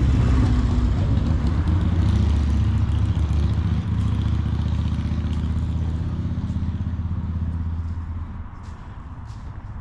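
Engine of a road vehicle running close by with a deep, steady hum, growing quieter over the last few seconds.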